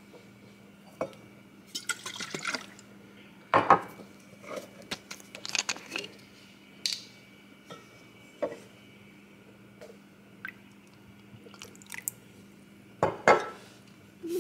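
Kitchen work while making tea: cups and glassware clinking and knocking on a counter, with a short pour of liquid about two seconds in. The sharpest knocks come about three and a half seconds in and near the end, over a steady low hum.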